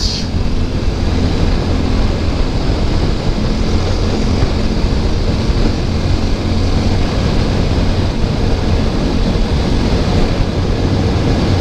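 Steady wind rush over the microphone of a motorcycle cruising at highway speed, with the even drone of the TVS Apache RTR 200 4V's single-cylinder engine under it.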